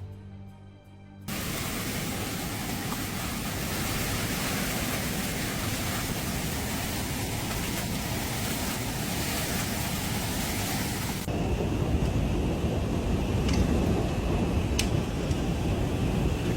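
Background music fades out, and about a second in the sound cuts to a loud, steady roar of a severe storm pelting down. Near the end it changes abruptly to a louder, deeper storm roar with a couple of sharp knocks.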